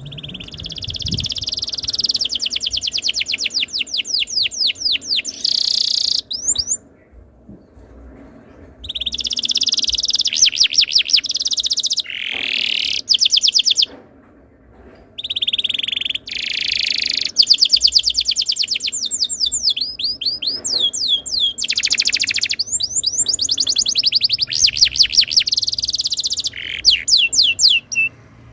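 Domestic canary singing a long song of rapid rolling trills, phrase after phrase of quickly repeated notes, breaking off twice for a couple of seconds.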